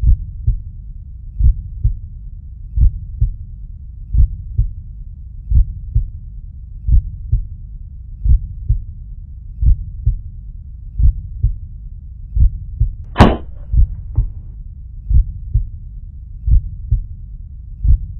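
Heartbeat sound effect: slow, loud double thumps repeating about every second and a half. About 13 seconds in comes a single sharp shot from a suppressed .22 pellet air gun.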